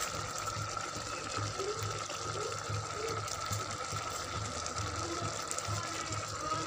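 Rice in jaggery syrup simmering in an aluminium pot, a steady watery bubbling hiss as the liquid boils down.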